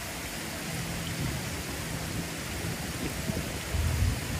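Strong wind on the microphone: a steady hiss, with heavy, uneven low buffeting starting near the end.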